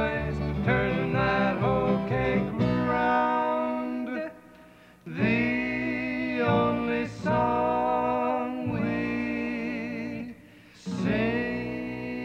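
Two men singing long held notes in harmony, accompanied by acoustic guitar and upright bass. Some notes waver in pitch, and the music breaks off twice for under a second.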